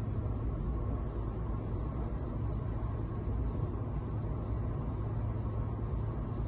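Interior sound of a 1990 Volvo 480 ES cruising steadily at motorway speed: an even low engine drone under road and tyre rumble.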